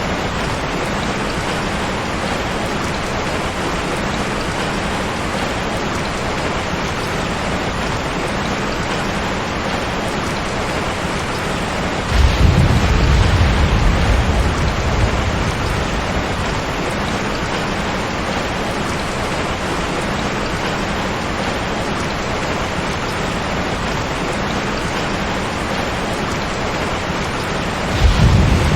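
Steady heavy rain hiss with two low rolls of thunder: one breaking suddenly about twelve seconds in and fading over a few seconds, another starting near the end.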